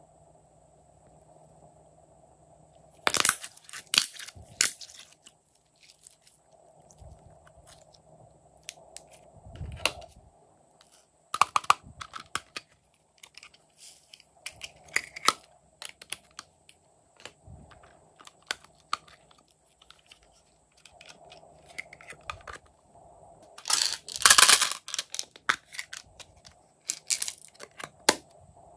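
Hands working glossy slime and small plastic cases: clusters of crackling, crinkling and clicking, loudest about three seconds in, near twelve seconds and again near twenty-four seconds, over a faint steady hum.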